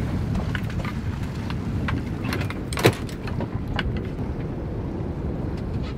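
Wind rumbling on the microphone aboard a boat at sea, with scattered light clicks and knocks. The loudest is one sharp knock about three seconds in.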